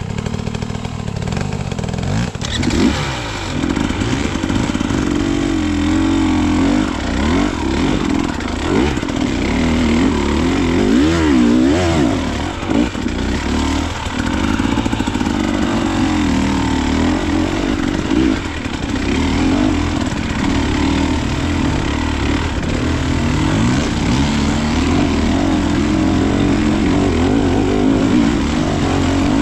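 Dirt bike engine running hard on a trail climb, its revs rising and falling over and over as the throttle is worked.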